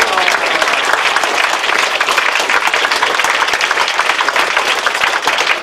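An audience of a few dozen people applauding steadily, a dense patter of hand claps.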